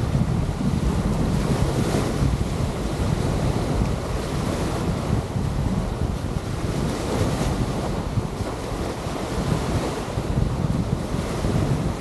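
Wind buffeting the microphone in an uneven low rumble over a steady wash of beach surf.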